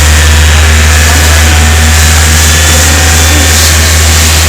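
A small ferry boat's two engines running together under way, a loud, steady low drone with no change in speed.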